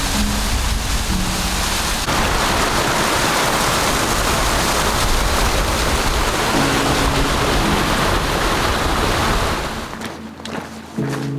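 A waterfall cascading down a rocky chute, a loud steady rush of water, with soft background music underneath. Near the end the water sound falls away, leaving the music and footsteps on a gravel trail.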